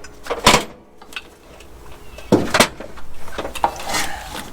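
A few sharp knocks and clanks of parts and tools being handled: one about half a second in, a louder one about two and a half seconds in, then a run of smaller knocks and rattles.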